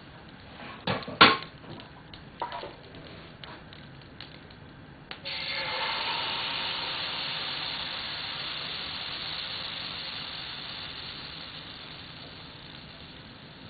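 A few sharp knocks, the loudest about a second in. About five seconds in, pancake batter is poured into a hot, oiled frying pan and starts sizzling at once. The sizzle then slowly dies down.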